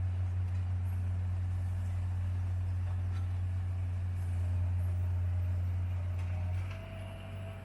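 Heavy diesel engine of road-construction machinery running steadily, a deep drone that drops in level near the end.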